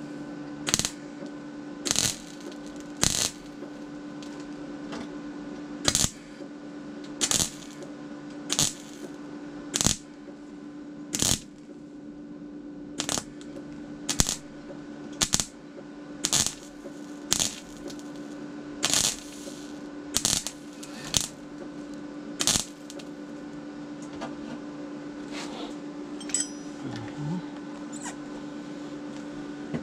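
Metallic clinks, roughly one a second and some a little drawn out, over a steady hum; the clinks stop about three quarters of the way through.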